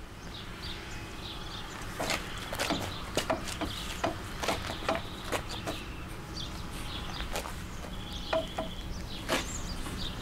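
Birds chirping over a low steady hum, with scattered sharp clicks and knocks as heavy webbing tow straps are handled and pulled taut.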